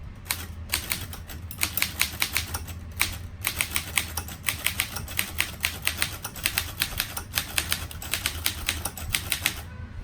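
1937 Underwood Champion portable typewriter being typed on in capitals: a quick, uneven run of sharp typebar strikes against the platen, several a second, with brief pauses.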